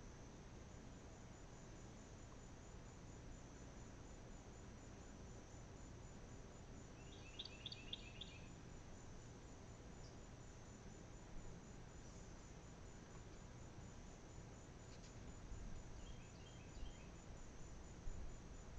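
Near silence with faint, steady high-pitched insect chirring from outdoors in summer, and a brief run of faint chirps about seven seconds in and again near the end.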